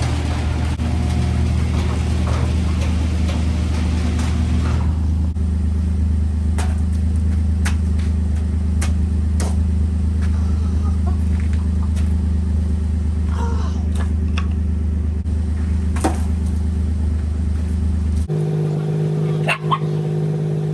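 A car engine running steadily at idle, with scattered sharp clicks. About 18 seconds in, the sound cuts abruptly to a different steady engine hum.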